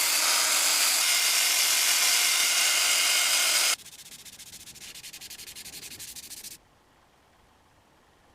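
Wood being sanded: a steady, even hiss of abrasive rubbing on wood. About four seconds in it drops to a much fainter, rapidly ticking scratch, which stops about two seconds later.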